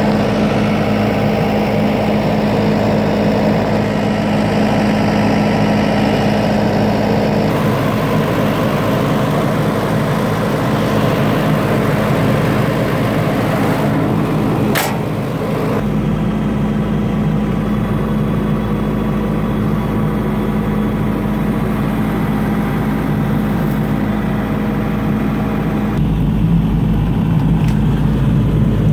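John Deere 75D hydraulic excavator's diesel engine idling steadily, with one sharp click about halfway through.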